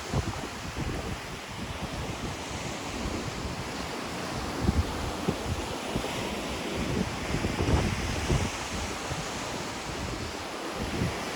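Ocean surf washing onto the shore in a steady wash, with wind buffeting the microphone in low, uneven gusts.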